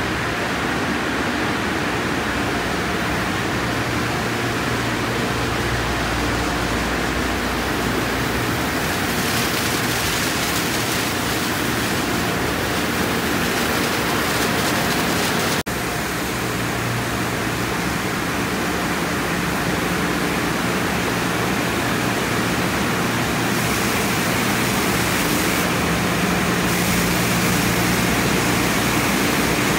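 Tunnel car wash equipment running: a loud, steady rush of spraying water and cloth brushes over a low hum of pumps and motors, with a momentary break about halfway through.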